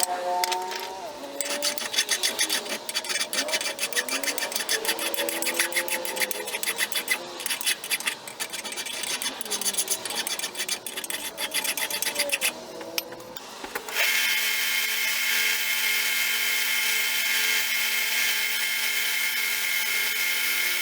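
Power sanding of a steel hammer head: a dense, rapid rasping of abrasive on metal over a wavering motor whine. About 14 seconds in it cuts abruptly to the even, steady whine of the tool running.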